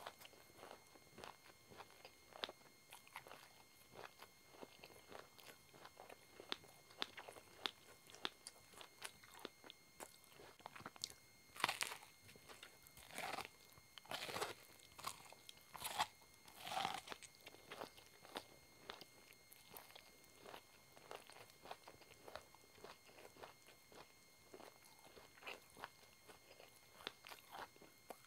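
Close-miked biting and chewing of kernels off a cob of multicoloured corn: irregular crisp crunches, with a run of louder bites near the middle.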